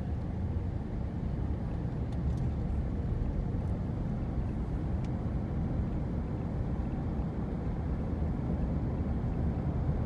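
Steady low rumble of a car driving at road speed, heard from inside the cabin: tyre and engine noise.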